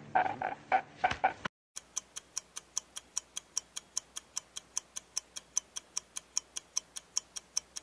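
A man sobbing and wailing, which cuts off about a second and a half in. Then a clock ticking steadily and quickly, about five ticks a second.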